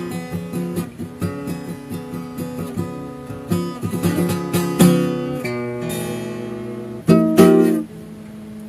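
Guitar playing the closing phrase of a piece: picked notes and chords, then a strummed chord about seven seconds in, leaving a single note ringing.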